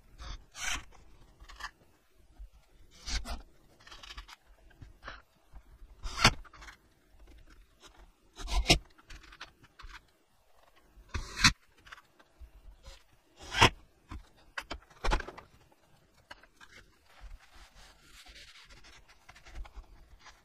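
Workshop handling sounds from wooden cabinet parts: a string of short, sharp knocks and clatters with scraping of wood, the loudest coming about every two seconds. Near the end a cloth rubs over the pine boards.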